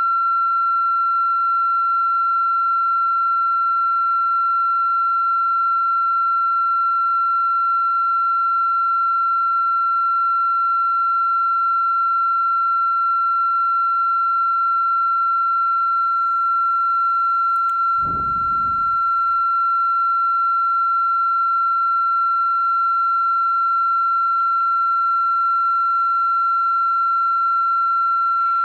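A steady, high-pitched electronic tone that holds unchanged. About eighteen seconds in it is briefly joined by a click and a low rumble.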